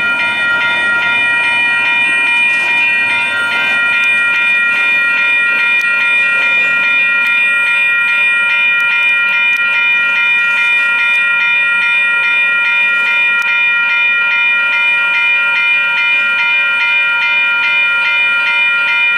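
Railroad grade-crossing bell ringing steadily in rapid, even strikes while the warning signals are active. Under it, the rumble of the tail end of a double-stack freight train passing fades out over the first few seconds.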